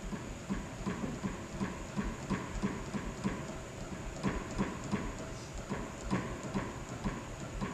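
Hand pump being worked in steady repeated strokes, with short clicks about three a second. It is pressurising the intensifier's loading tool toward 9,200 psi.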